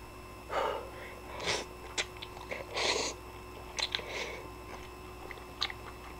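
A person eating instant ramen: thick noodles slurped from the bowl three times in the first three seconds, then chewing with short, sharp mouth clicks and smacks.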